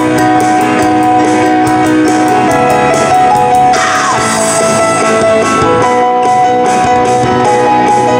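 A band playing live, with keyboards and drums. About halfway through, the lead singer sings a short phrase that falls in pitch.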